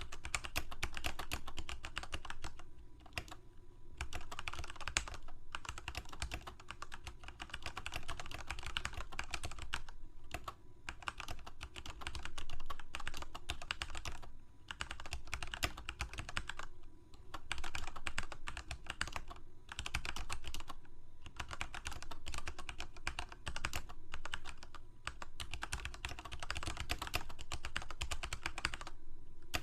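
Computer keyboard being typed on in fast, continuous runs of keystrokes, with short pauses every few seconds.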